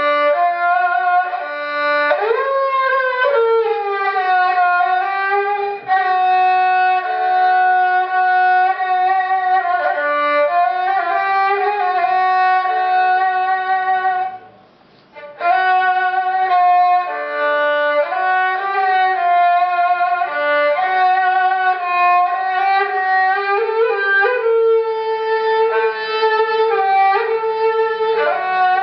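A klasik kemençe (Politiki lyra), the small three-stringed bowed fiddle, here with a maple body and cedar soundboard, being bowed in a solo melody. It holds sustained notes with slides between pitches, with a brief pause about halfway through.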